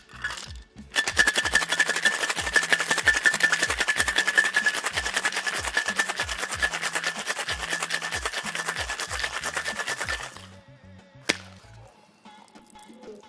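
Ice rattling rapidly and hard inside a two-piece metal cocktail shaker (tin on tin) being shaken vigorously for about nine seconds, stopping abruptly, followed by one sharp knock as the tins are parted.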